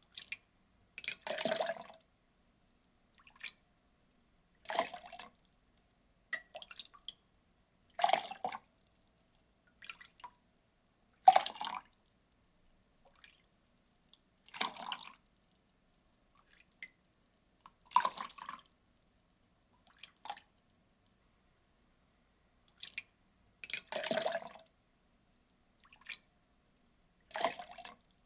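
Water poured in short splashes of about a second each, repeating roughly every three seconds, with one longer pause near the middle and scattered drips falling between the pours.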